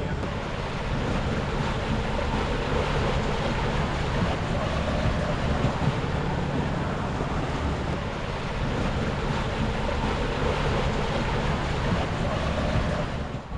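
Steady wind noise on the microphone over the rush of water along the hull of a sailboat moving through the sea.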